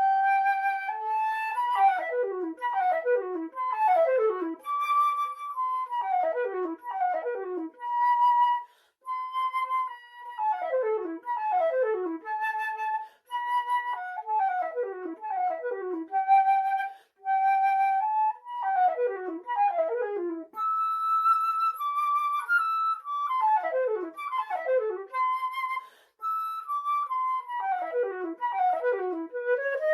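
Solo flute playing a melody of quick descending runs and held notes, in phrases separated by brief pauses.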